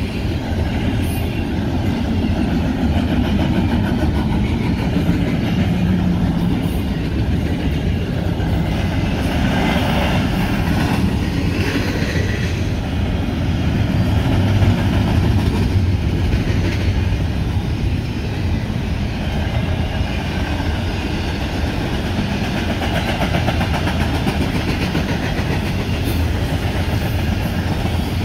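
Double-stack intermodal train's loaded well cars rolling past: steel wheels on the rails give a steady rumble.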